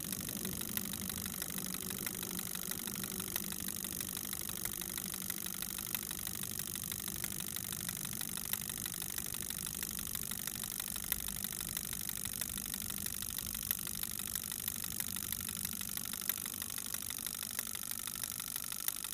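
Eight small relays switching rapidly as they count in binary at about 100 steps a second, a fast, steady chatter of clicks that sounds like an idling diesel engine.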